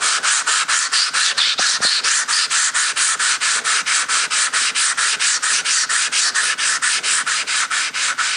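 Shapton ceramic glass sharpening stone being scrubbed back and forth on wet wet-and-dry sandpaper, a steady wet rasp in quick even strokes, about five a second. This is the stone being flattened, its surface grinding off into a white slurry.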